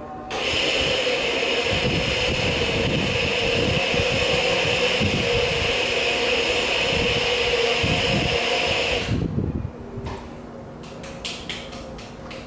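A loud, steady machine noise, a hum with a hiss over it, switches on suddenly and runs for about nine seconds before cutting off, followed by a few faint clicks.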